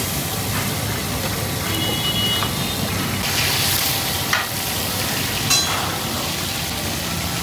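Masala-coated fish shallow-frying in oil in a wide steel pan, a steady sizzle. Two short sharp clicks come about four and a half and five and a half seconds in.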